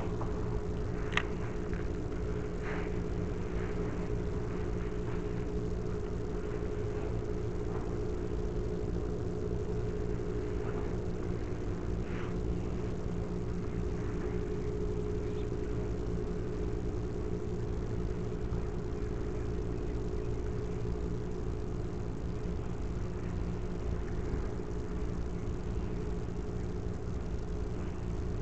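Steady low mechanical hum with a constant engine-like drone and rumble, unchanging throughout; a few faint clicks sound in the first few seconds.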